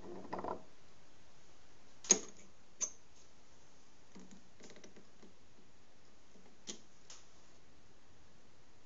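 A few sharp metallic clicks and taps as drill bits are swapped in a drill press's keyed chuck with a chuck key. Two louder clicks come about two seconds in, then softer scattered ticks.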